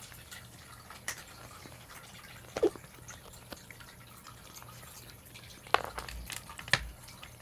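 Adult tabby cat chewing on the rubber nipple of a pet milk nursing bottle instead of sucking on it: faint wet clicks and drips, a short squeak about two and a half seconds in, and two louder clicks near the end.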